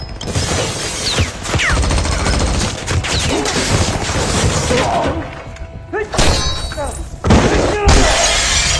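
Action-film soundtrack: glass shattering and crashing for several seconds, then two more crashes, with music underneath.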